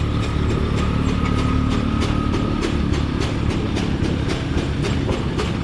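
An old engine running steadily, with a regular knock about three times a second over a low rumble. A faint steady whine runs through the first half.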